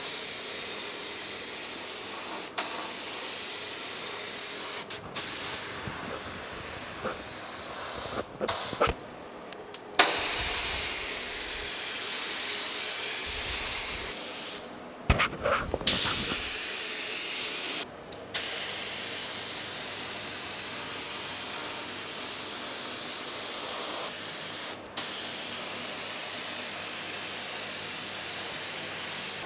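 Small StartingLine spray gun hissing as compressed air atomises black base coat, in long passes broken by several short pauses.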